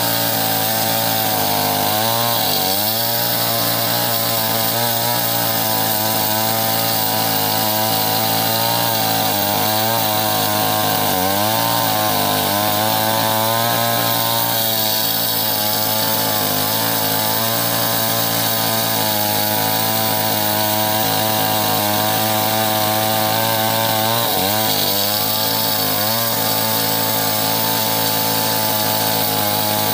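Stihl MS 381 two-stroke chainsaw running at full throttle, ripping lengthwise through a big log. The engine note dips briefly three times as the chain bogs under load, then picks back up.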